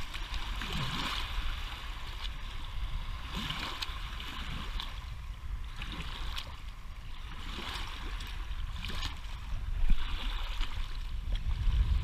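Small lake waves washing in over a gravel shore and a half-submerged rock, surging and falling back every couple of seconds over a steady low rumble. A single sharp knock about ten seconds in.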